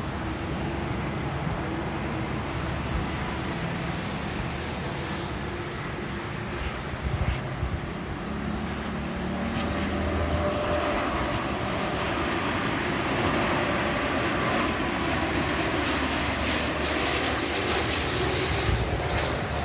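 Airbus A330 twin-engine jetliner on final approach, its jet engines giving a steady rushing drone that grows a little louder about halfway through, with faint high whining tones coming in then.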